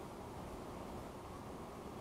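Steady, muffled rush of rain, picked up by a dashcam microphone inside a parked car, with most of the sound low and dull and no separate drops standing out.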